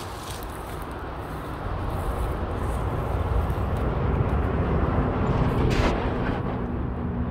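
Low rumble of a motor vehicle growing louder over a few seconds, then holding steady with an engine hum.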